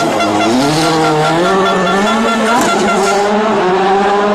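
Rally car engine revving hard on a street stage: its note climbs, changes abruptly about two and a half seconds in as with a gear change, then holds fairly steady.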